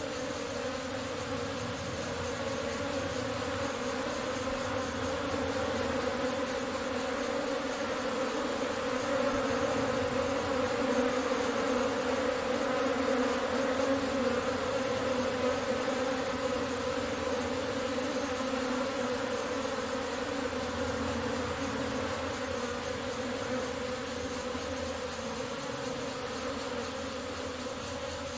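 A honeybee swarm humming steadily at one pitch as the bees crowd into a crevice in a stone wall to take it as their new nest site. The hum swells a little louder around the middle.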